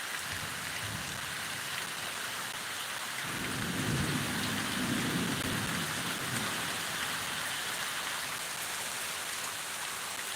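Steady rain falling, with a low roll of thunder rumbling from about three seconds in until about six and a half seconds.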